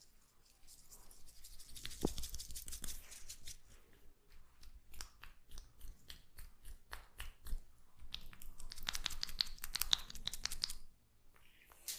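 Oily hands massaging a head: wet, squishy rubbing and crackling through oiled hair and scalp, a dense run of quick irregular crackles that is busiest in the second half and pauses briefly near the end.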